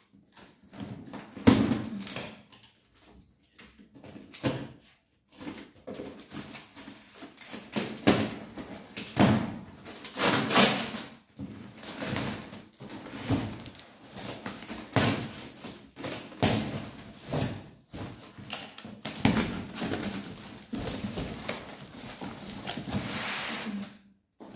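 Brown paper wrapping and cardboard boxes being handled while kitchenware is unpacked: irregular bursts of paper rustling and crackling with occasional knocks.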